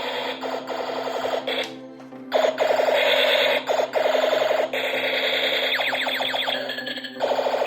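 Electronic sound effects from a battery-powered toy: rapid, repeated synthesized zaps in blocks that cut in and out abruptly, over a steady low hum.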